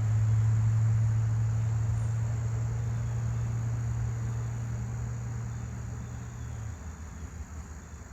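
A steady low motor hum that cuts out about seven seconds in, over crickets trilling steadily.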